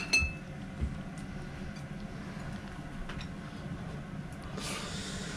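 Steady low kitchen hum with a ringing clink of a utensil against a dish just at the start, a small knock about a second in, and a brief hiss near the end.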